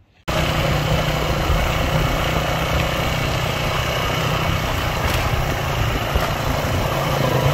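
Motorcycle engine running steadily at road speed, heard from a moving motorcycle, with heavy wind and road rush over it. It starts abruptly just after the start.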